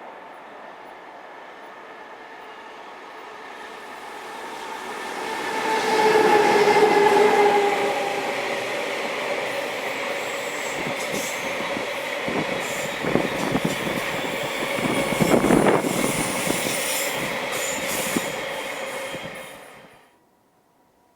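EH200 electric locomotive hauling a long train of oil tank wagons past at speed. It grows loud about four seconds in, with a steady pitched whine as the locomotive passes. The wagons' wheels then clatter rhythmically over the rail joints until the sound cuts off suddenly about twenty seconds in.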